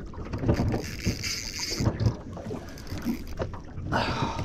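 Wind buffeting the microphone and water slapping against the hull of a small boat at sea, with irregular low bumps.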